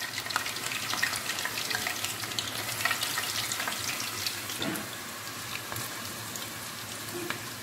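Soaked moong dal deep-frying in hot oil inside a wire-mesh strainer, the oil sizzling with many fine crackles, easing slightly about five seconds in.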